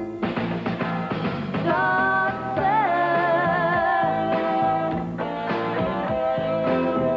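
Rock band playing, with strummed guitar chords and singing; about three seconds in, a note is held with a wavering vibrato.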